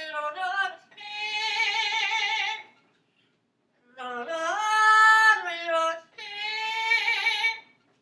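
Parrot singing in an operatic style: a few short notes, then three long held notes with a wavering vibrato, separated by short pauses, the middle note the loudest.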